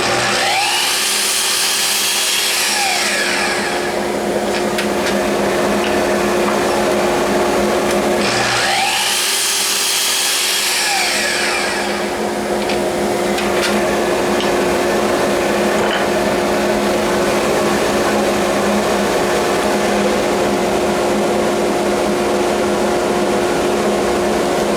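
An electric woodworking power tool running steadily with a constant hum. It grows louder and hissier twice, for about three seconds each time, near the start and again about eight seconds in, as it cuts into the wood.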